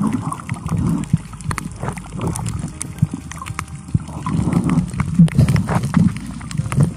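Water sloshing and gurgling around a camera held underwater in shallow sea, an uneven low rumble that swells and fades, with many scattered sharp clicks.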